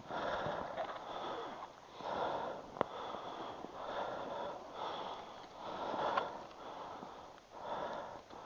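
A person breathing heavily, one breath about every one to two seconds, with a couple of sharp clicks in between.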